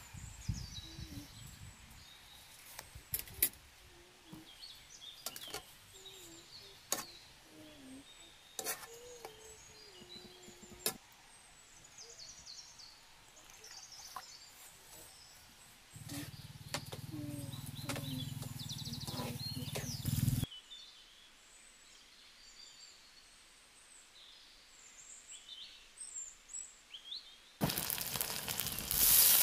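Birds chirping over a quiet outdoor background, with scattered sharp clicks and knocks and a few seconds of low rumble around the middle. Near the end a sudden loud sizzle starts: chicken and onions frying in hot oil in a wok over a wood fire.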